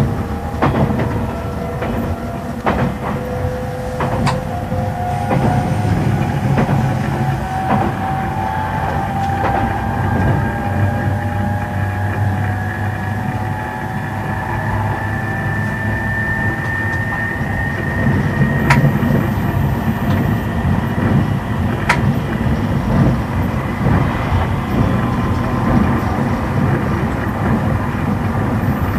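JR East E353 series electric train running, heard from inside a motor car: the IGBT-VVVF inverter and traction motors give a whine that slowly rises in pitch as the train picks up speed, over a steady rumble of wheels on rail, with a few sharp clicks.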